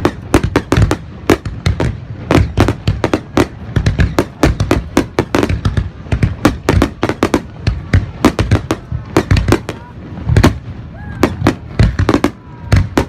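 Aerial fireworks bursting in a rapid, continuous barrage of bangs, several a second, with a few short whistles about three quarters of the way through.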